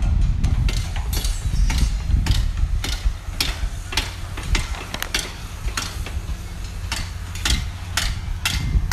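A run of sharp knocks, two or three a second, over a steady low rumble.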